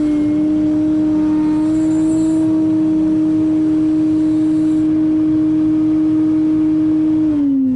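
Heavy diesel construction machinery running hard with a steady, high-pitched drone. Near the end the pitch glides down and the sound gets quieter as the machine throttles back.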